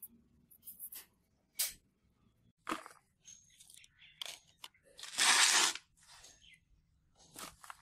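Scattered short crunches and scrapes of hands working materials, with one louder rasping crunch lasting about half a second a little past the middle.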